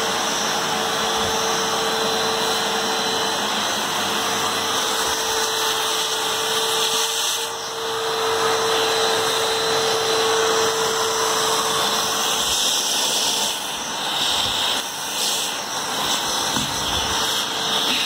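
Samsung SC4130 canister vacuum cleaner running, drawing air in through the open end of its hose wand with a steady whooshing hum. A steady whine fades out about halfway through, and the airflow sound shifts and dips a little as the wand end is moved along a window sill.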